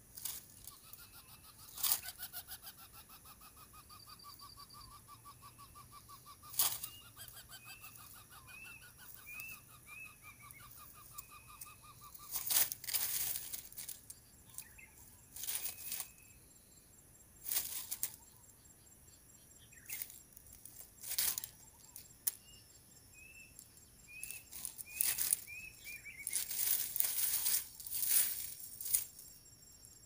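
Dry grass crackling and rustling as a lesser coucal shifts at its nest and leaves, with a cluster of rustles near the end. A thin pulsed buzz runs through the first twelve seconds, and short runs of repeated high chirps come twice.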